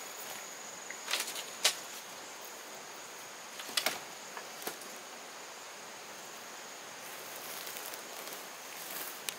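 Steady high thin drone over a background hiss, broken by a few short sharp clicks about a second in, near two seconds, and around four and five seconds.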